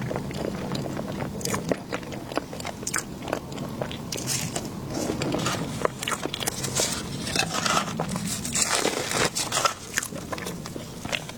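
Close-miked mouth sounds of biting and chewing food, with many irregular wet clicks and crunchy snaps.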